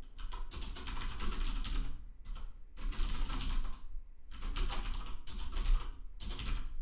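Typing on a computer keyboard: rapid runs of keystroke clicks in several bursts with brief pauses between them.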